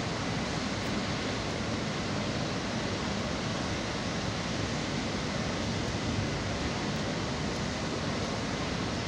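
Steady, unbroken rushing noise of a working cement plant's machinery, with a faint high whine running through it.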